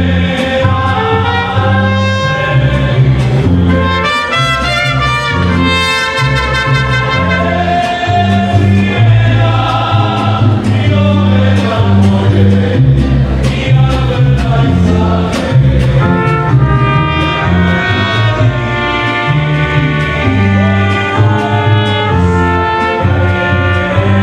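Mariachi band playing live: trumpets carrying the melody over guitarrón bass notes and strummed guitars.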